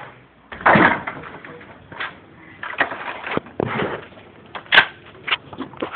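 Scrap wood boards knocking and clattering as they are handled on a pile: irregular knocks, the loudest about a second in, and a sharp click near the end.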